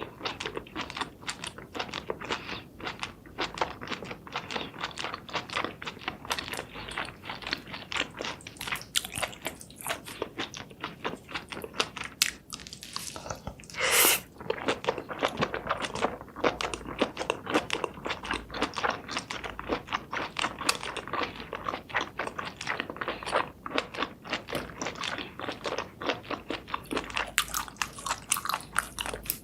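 Close-up eating sounds of seafood: dense, irregular crunching and chewing, with one louder, noisier burst about halfway through.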